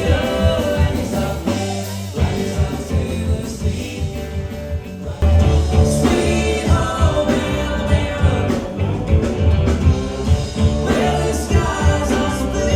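A song with singing over a band and a steady beat; it gets louder about five seconds in.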